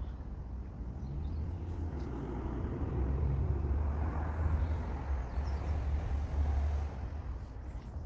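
A road vehicle passing, a low rumble that builds about a second in, is loudest in the middle and fades near the end.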